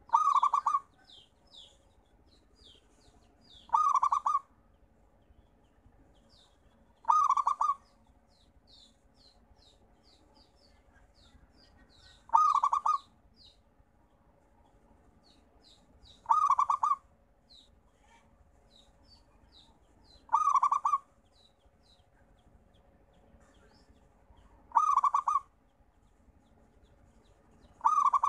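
Zebra dove (perkutut) singing its coo: a short, loud, rolling phrase repeated about every four seconds, eight times. Faint high chirps of small birds fall between the coos.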